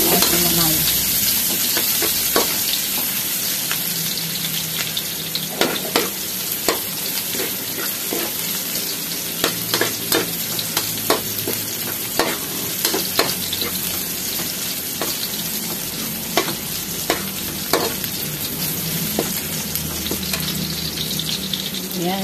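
Chopped garlic sizzling in hot oil in a wok, stirred with a metal spatula that scrapes and clicks against the pan now and then.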